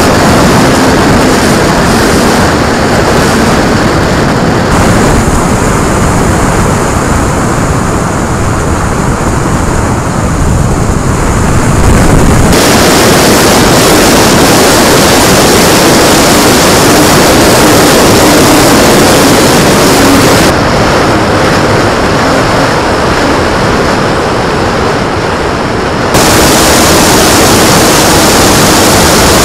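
Loud wind rush over an onboard camera on an electric-powered FMS 1400mm T-28 Trojan RC plane, mixed with the drone of its motor and propeller. The sound changes abruptly several times as the clips cut from one to the next.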